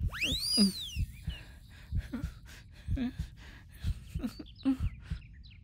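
A whistle-like tone glides up and back down within the first second, then soft low thumps follow at about two a second, with faint short chirps over them.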